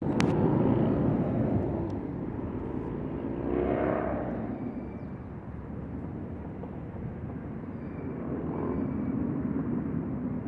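A continuous low rumble from the sky, with no aircraft in sight to explain it, mixed with the sound of passing cars. The noise is loudest at the start, and a vehicle swells past about four seconds in and again near the end.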